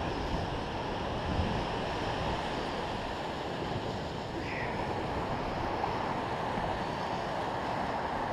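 Steady rush of ocean surf breaking and washing up a sandy beach, with wind on the microphone.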